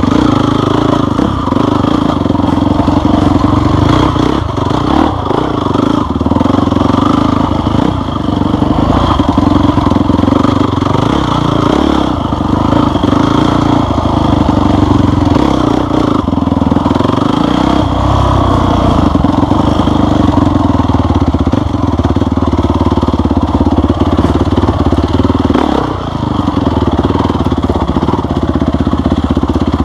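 Off-road motorcycle engine running steadily on a trail ride, with a rattle of small clatters over rough ground and a couple of brief drops in throttle.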